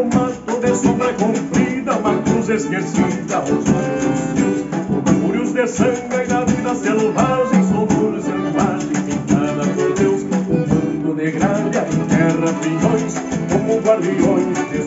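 Live gaúcho folk music from a small band: accordion and a drum played with sticks, with plucked strings in the mix.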